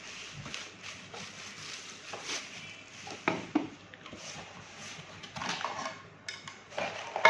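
Parts of a handheld 12 V car vacuum cleaner being handled and taken out of their packaging: scattered clicks and clatters of hard plastic with some rustling. The vacuum's motor is not running.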